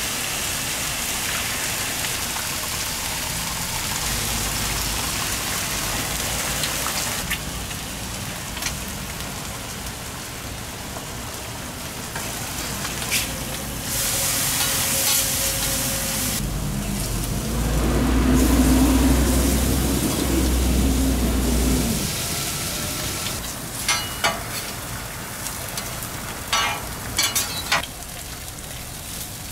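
Burger patties, onions, egg and bacon sizzling on a hot flat-top steel griddle, a steady crackling hiss. A low rumble swells for a few seconds midway, and near the end sharp metal clicks come from tongs and a spatula on the griddle plate.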